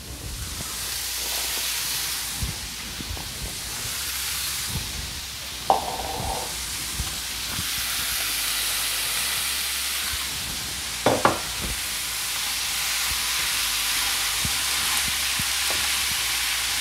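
Minced beef with chopped red pepper and onion sizzling steadily in a hot non-stick frying pan while a wooden spoon stirs it. There is a sharp knock about six seconds in and two more around eleven seconds.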